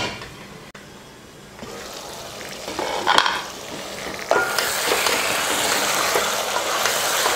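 Chicken curry sizzling and bubbling in a pot as the chicken cooks in its own released juices. A brief clatter comes about three seconds in, and the sizzling turns louder and steady from a little past halfway.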